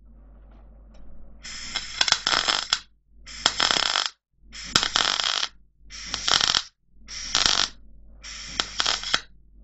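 MIG welder arcing on square steel tubing in six short weld bursts of about a second each, starting around a second and a half in, with a low hum between them.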